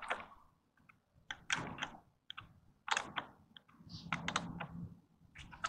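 Irregular light clicks and knocks of galvanized pipe fittings being handled and threaded together by hand.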